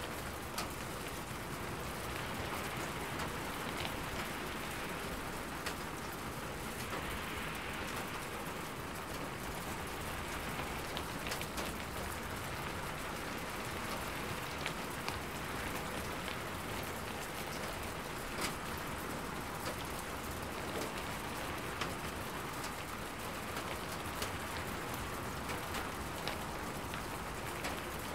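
Steady rain falling, with single drops striking sharply here and there through the even hiss.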